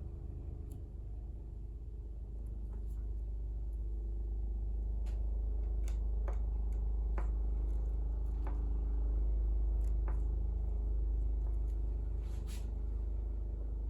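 Scattered light clicks and taps, about a dozen spread irregularly, from piano keys and hammer action parts being handled and tested for friction during weighoff. A steady low rumble runs underneath and is the loudest sound.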